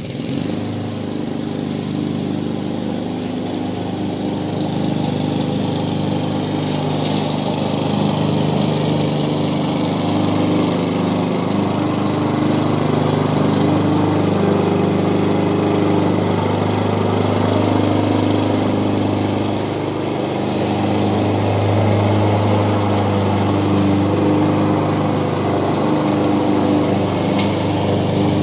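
Honda walk-behind lawn mower engine running steadily while cutting grass. It grows louder over the first few seconds as it comes closer and passes close by about halfway through.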